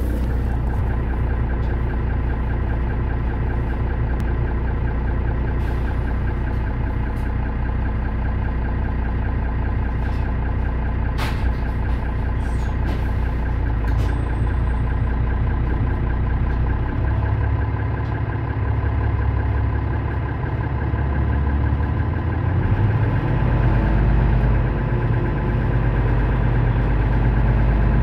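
Mercedes-Benz Citaro O530 city bus engine idling with the bus standing still, a steady note whose low rumble grows heavier in the second half. A sharp click sounds about eleven seconds in.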